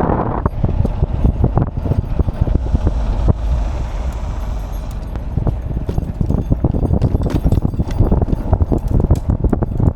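Wind buffeting the microphone on a moving Rumble Henzo V5 electric bike: a heavy, uneven low rumble. Frequent sharp clicks and knocks, as the bike jolts over the road, run through it.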